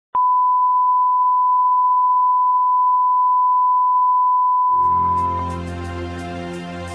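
A steady, pure line-up test tone of the kind that runs with colour bars, lasting about five seconds. Music with low sustained chords and a light ticking comes in under it near the end as the tone fades out.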